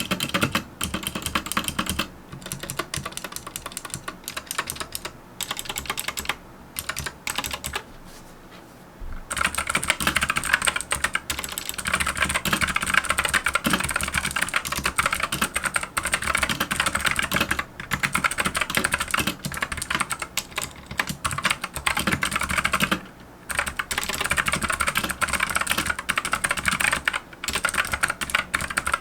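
Fast, continuous typing on a Monstargear MK308 mechanical keyboard with Gateron blue optical switches, clicky keystrokes on PBT keycaps. The typing pauses briefly about eight seconds in, then resumes louder and denser.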